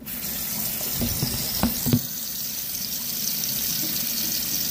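Kitchen tap turned on and running steadily into a stainless-steel sink while a broken toy ball is filled with water under the stream. A few dull knocks come about one to two seconds in.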